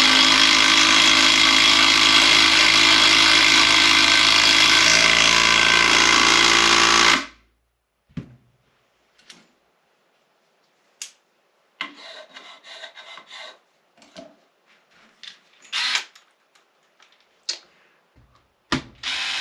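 Skil PowerCore cordless driver running steadily under load as it drives a 3-inch screw, stopping suddenly about seven seconds in. Faint clicks and handling noises follow.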